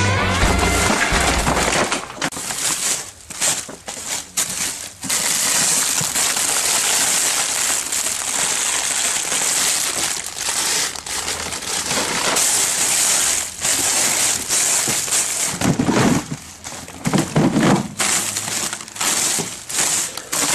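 Plastic bags and food packaging rustling and crinkling as someone rummages through a supermarket waste container. The tail of background music ends about two seconds in.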